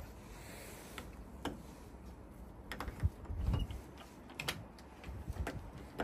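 Irregular sharp clicks and a few dull clunks from a uPVC door's lock mechanism and lever handle being worked by hand.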